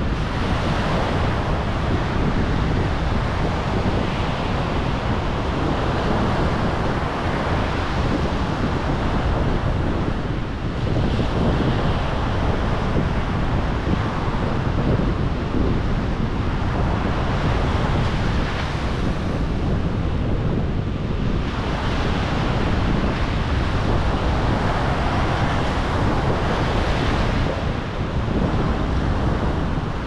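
Ocean surf: waves breaking and washing up on the shore every few seconds, each swelling into a brighter hiss and then fading, over a steady low rumble.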